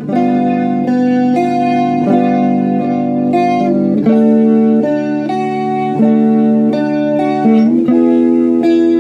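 Electric guitar (a Fender Stratocaster) played through a Yamaha RA-200 rotary speaker amp, ringing out sustained chords that change every second or two.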